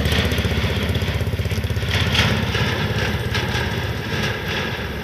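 A motorcycle engine running with a fast, even exhaust pulse, growing a little fainter toward the end.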